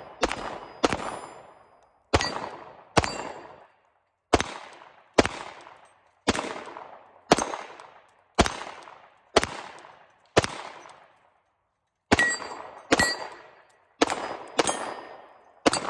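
Glock P80 9mm pistol firing about sixteen shots at a steady pace of roughly one a second, with a pause of over a second near the end before a quicker string. Several shots are followed by the ring of steel plate targets being hit.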